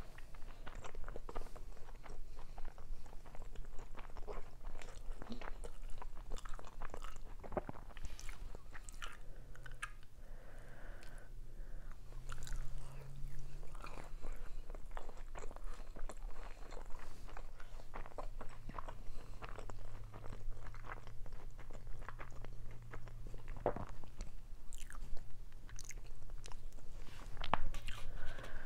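Close-miked chewing and biting of dolmas (stuffed grape leaves), with many small, irregular wet mouth clicks.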